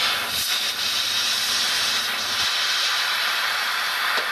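Loud, steady hiss of a spray jet aimed under the GPU chip of a graphics card, blowing out dust and rust particles.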